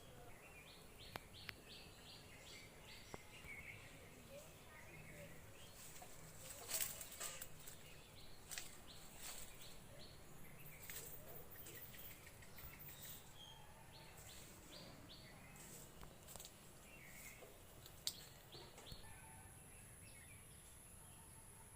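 Faint birdsong outdoors: scattered high chirps, with two quick runs of about half a dozen short high notes, one near the start and one a little past the middle. A few sharp clicks stand out, and a thin high steady tone comes in near the end.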